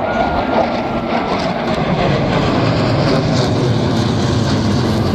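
Jet engine noise from Blue Angels F/A-18 Hornets in flight, a loud steady rushing sound with its weight in the low end.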